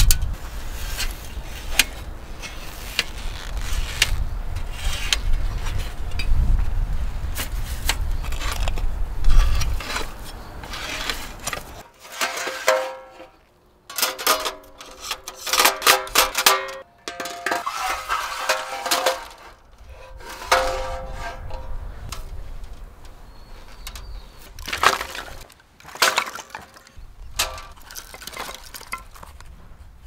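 Stainless-steel panels and frame of a folding fire pit clinking and clattering as they are handled and slotted together: many sharp metallic clicks, some ringing briefly. A low rumble sits under the first third.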